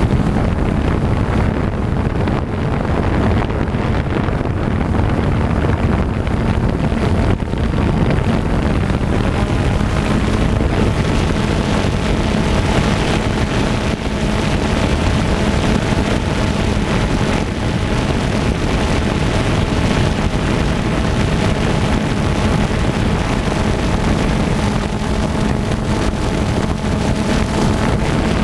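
FPV quadcopter's electric motors and propellers buzzing steadily in flight, with wind rushing over the microphone.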